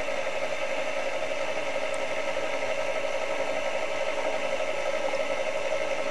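Electric mixer running steadily, beating egg whites into a dry mix of powdered sugar and cocoa for crunchy chocolate cookie dough.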